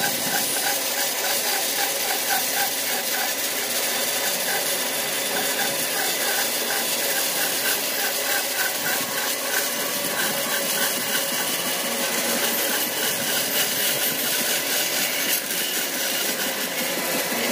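Band saw cutting through a thick wooden slab along a curved line: a steady, even sawing noise, with a faint regular pulse about three or four times a second during the first few seconds.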